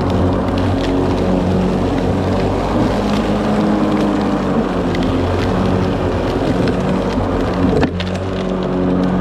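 Ryobi 40V brushless battery lawn mower running with a steady low hum from its motor and blade, over a hiss of cutting and scattered ticks of debris. A sharp crack comes near the end, followed by a brief dip in level.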